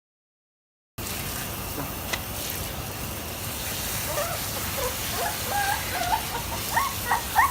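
Puppies whimpering: short, high, wavering whines that start a few seconds in and come more often toward the end, over a steady rushing hiss. The sound starts abruptly about a second in.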